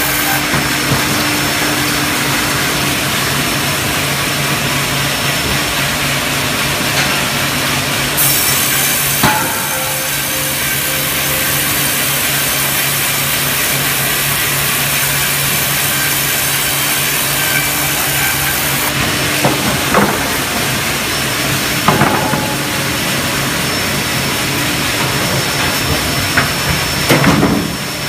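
LBL Brenta log band saw sawing a log fed on a Spider 1260 hydraulic carriage: a dense, steady sawing noise over a low machinery hum, its hiss stronger for about ten seconds in the middle. Several sharp knocks come in the last third.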